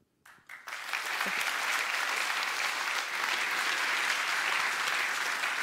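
Audience applauding: it breaks out about half a second in and holds steady.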